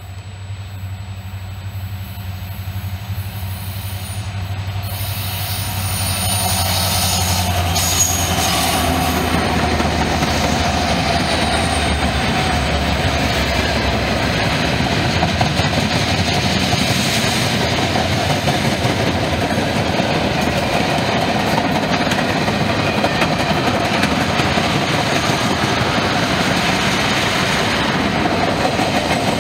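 A Norfolk Southern freight train passing close by: the diesel locomotive's engine hum grows louder over the first few seconds as it approaches. Then the steady rumble and clatter of the freight cars' wheels on the rails.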